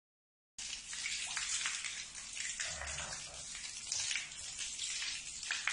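Water spraying and splashing from a garden hose onto stone as a pug bites at it, starting about half a second in.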